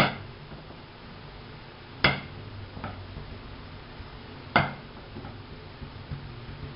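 Thin wooden rolling pin knocking sharply against the table three times, about two seconds apart, with a fainter knock between, while dough is rolled out and pressed flat.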